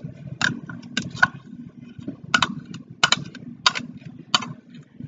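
A metal table knife scraping and knocking against a plastic measuring cup to get shaving cream out, heard as about eight sharp, irregularly spaced clicks.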